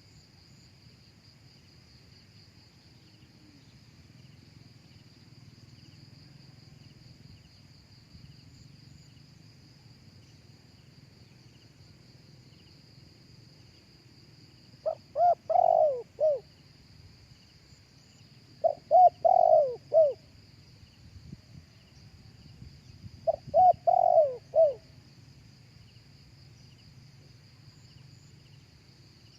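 Spotted dove cooing: three short phrases of several notes each in the second half, a few seconds apart, over a steady high whine of insects.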